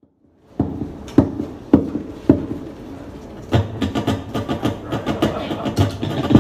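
Guitar intro: four single strummed chords about half a second apart, then from about three and a half seconds in a steady, busier rhythmic strumming pattern.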